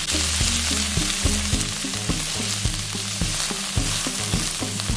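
Diced shiitake mushrooms, shallots and beef sizzling in hot oil in a nonstick frying pan, stirred with a spatula.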